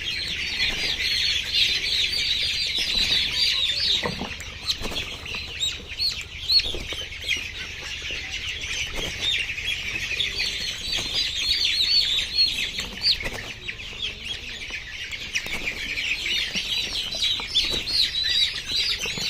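A crowded flock of young layer chicks peeping without pause, many high chirps overlapping, with a few brief knocks among them.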